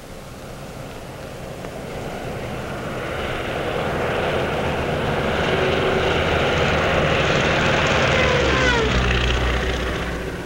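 A biplane's propeller engine flying past. It grows louder, its pitch drops as it passes about nine seconds in, then it begins to fade.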